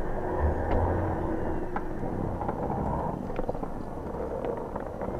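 Jeep Wrangler Rubicon 4xe driving slowly over a snow-covered dirt track: a steady rumble of tyres and drivetrain, with scattered light knocks.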